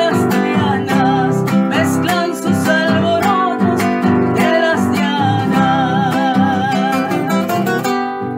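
Music: a patriotic folk song with strummed acoustic guitar and a wavering melody line above it.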